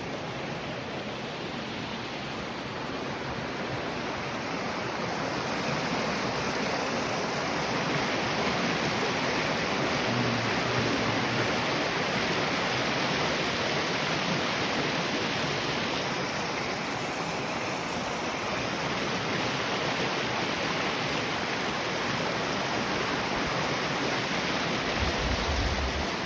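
Rushing water of a stream or small waterfall swollen with spring snowmelt: a steady rush that grows a little louder toward the middle. A short low thump near the end.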